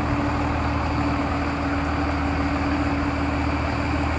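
Heavy diesel engine running steadily under load while a grounded barge is dragged free: an even low drone with one steady hum.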